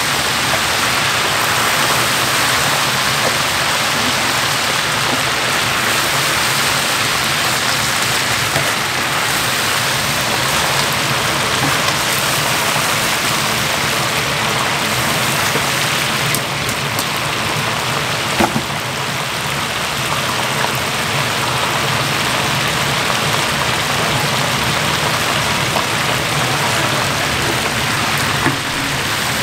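Mini blue crabs deep-frying in a large vat of hot oil: a loud, steady sizzle, with an occasional click.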